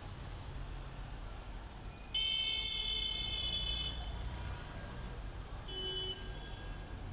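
A vehicle horn sounds twice over a steady low street hum: a long, steady blast about two seconds in and a shorter, fainter one near the end.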